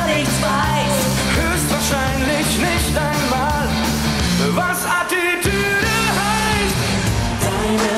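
Live rock song: a band playing with male voices singing the melody, several singers together.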